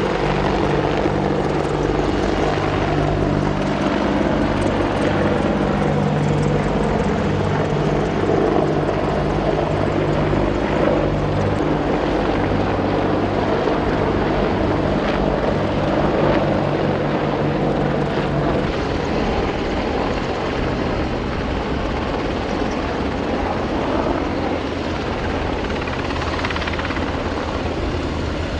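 Several AH-64D Apache attack helicopters running, their rotors and twin turboshaft engines making a loud, continuous drone with slowly gliding tones as they fly by.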